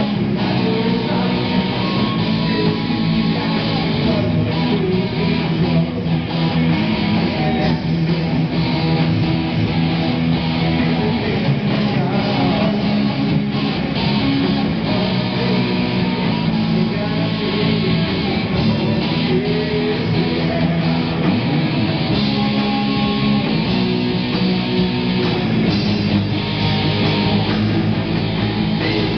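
Live heavy rock band playing: electric guitars over a drum kit, without a break.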